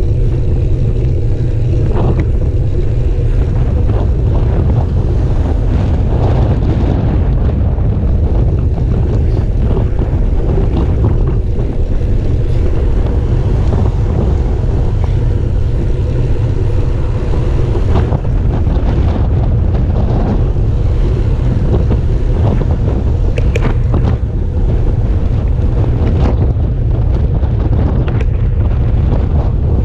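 Steady wind buffeting on the microphone of a camera riding on a moving bicycle, a loud, constant rumble.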